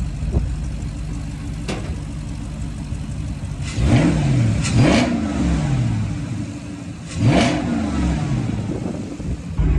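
Dodge Charger's 392 (6.4-litre) HEMI V8 idling while warming up, revved three times: the pitch rises and falls quickly about four and five seconds in, then once more near seven and a half seconds. The exhaust valves are open.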